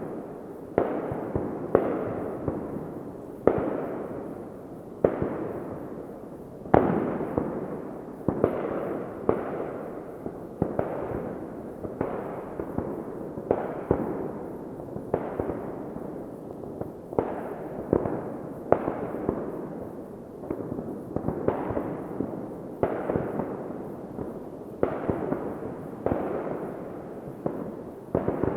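Fireworks exploding one after another, a sharp bang about every second, each trailing off in a rolling echo that runs into the next.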